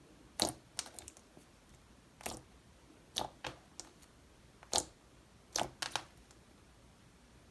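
Clicky slime being pulled and pressed by hand, giving sharp, irregular clicks and pops, about a dozen in six seconds, that stop about a second before the end.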